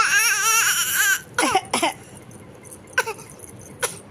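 A baby's voice: a high-pitched, wavering cry-like squeal for about a second, then a few short sharp cough-like sounds, a baby's fake coughs.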